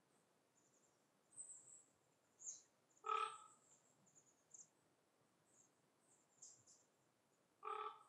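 Faint forest birdsong: thin, very high chirps and twitters from small birds, scattered and well apart. Twice, once a bit over three seconds in and again near the end, a louder, short, lower call with a rich, harsh tone.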